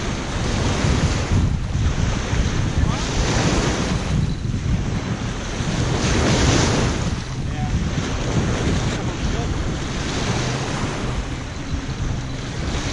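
Small wind-driven lake waves washing onto the shore in surges every few seconds, over a steady low rumble of wind buffeting the microphone.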